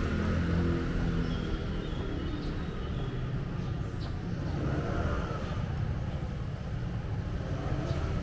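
City street traffic: motor vehicles passing, with a steady low rumble of engines and tyres. One engine is loudest in the first second or so.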